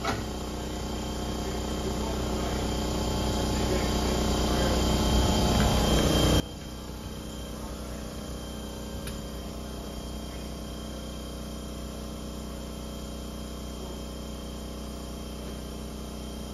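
Tire changing machine at work mounting a tire on a wheel: a steady mechanical noise that grows louder for about six seconds and cuts off suddenly, leaving a quieter steady hum.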